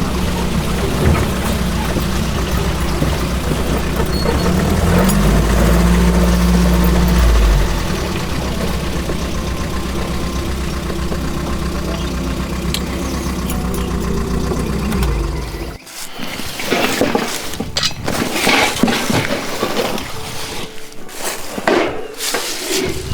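Jeep engine running under way, rising in pitch for a couple of seconds about five seconds in as it accelerates. It cuts off abruptly after about sixteen seconds, giving way to irregular crunching and rustling noises.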